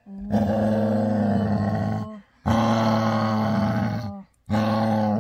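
Yellow Labrador retriever giving a happy growl: three long, low, drawn-out growls, each about one and a half to two seconds, with short breaks between. It is a contented growl while being petted, not an aggressive one.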